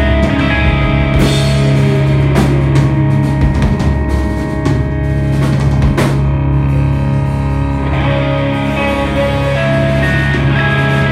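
Live instrumental rock from a two-piece band: electric guitar with held, ringing chords over a drum kit, with a few sharp cymbal hits.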